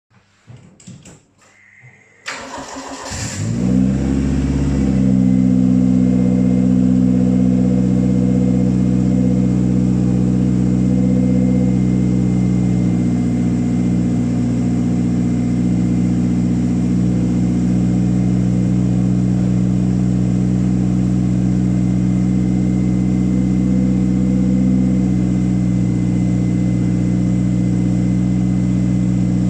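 Toyota Starlet EP82 four-cylinder engine started after its oil system has been primed: brief sounds of cranking, then it catches about two seconds in, picks up and settles into a steady idle.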